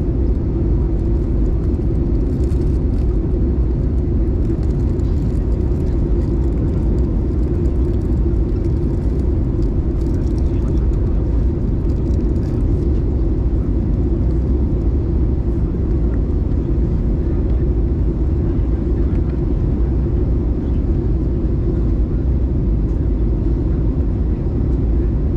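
Airbus A320 cabin noise on approach, heard inside the cabin by the wing: a steady, even rumble of the engines and airflow, heaviest in the low end.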